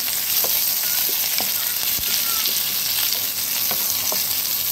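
Sliced onion sizzling in hot refined oil in a kadai, stirred with a wooden spatula that scrapes and taps the pan now and then in short clicks over a steady hiss.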